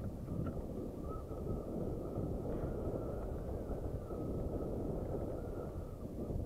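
Wind buffeting the bike-mounted camera's microphone, mixed with mountain-bike tyres rumbling over a loose gravel track on a descent. A faint steady whine sits above the rough noise.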